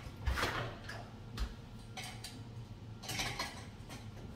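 Door lever handle and latch clicking as an apartment door is opened, then an adjustable steel door security bar is handled and set against the door with a low knock and a metal clatter.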